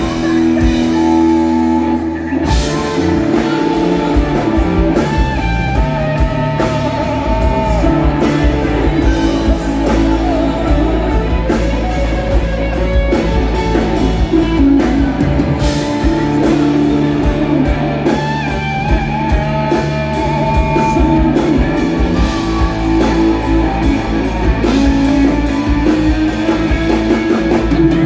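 Live rock band playing loud: electric guitar holding long notes that bend in pitch, over drums keeping a steady beat and bass.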